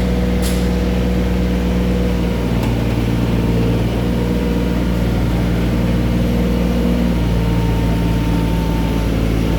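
Mini excavator's diesel engine running steadily at an even speed, with a brief click about half a second in.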